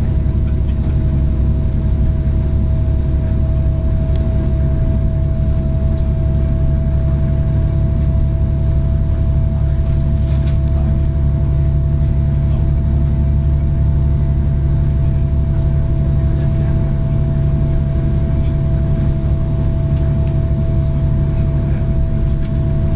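Cabin noise of a DB Class 612 diesel multiple unit under way: a steady low drone from its MTU diesel engine and the running gear, with a constant thin whine above it.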